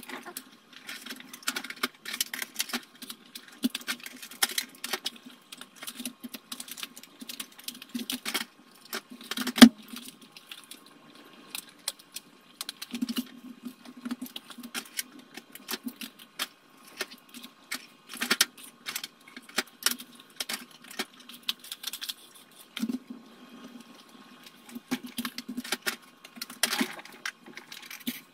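Quick, dense clicking, rattling and rustling of tweezers, a clear plastic box and cardboard egg-tray pieces being handled on a desk, sped up, with one sharp knock about ten seconds in.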